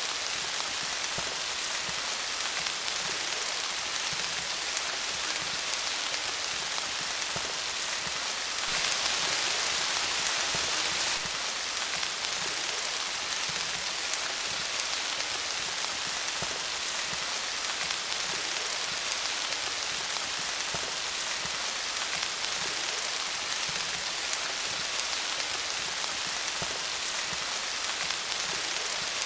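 Rain falling steadily on leaves, an even wash of drops with no other sound; it grows briefly louder for about two seconds around nine seconds in.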